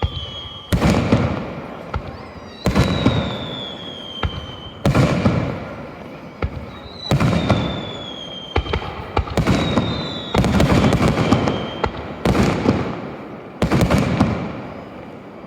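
Aerial fireworks shells bursting, about eight sharp booms roughly two seconds apart, each fading away in a long echo. Thin high whistles falling in pitch run between several of the bursts.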